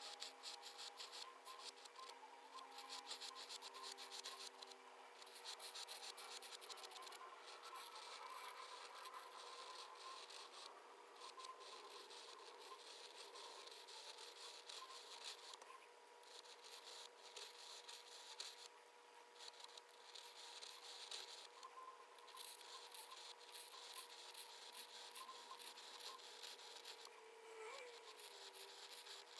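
Flex-nib pen scratching across paper in quick rhythmic strokes as it draws rows of small loops, with short pauses between runs. A faint steady hum lies underneath.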